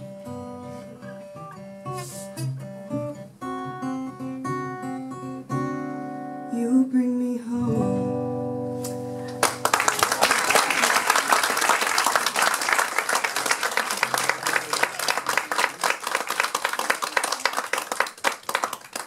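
Two acoustic guitars play the song's closing notes and let the last chord ring. About nine seconds in, the audience breaks into applause that keeps going.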